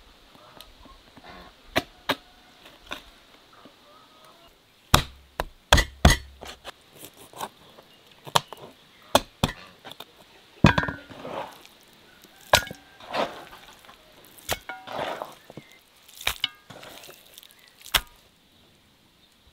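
Cleaver chopping raw chicken into pieces on a wooden cutting board: sharp, irregular knocks of the blade striking through into the board, several in quick succession about five seconds in.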